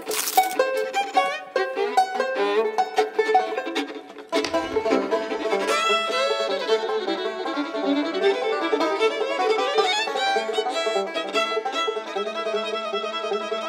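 Fiddle tune with banjo behind it, fast notes over a steady plucked accompaniment. It thins out briefly about four seconds in, then comes back fuller.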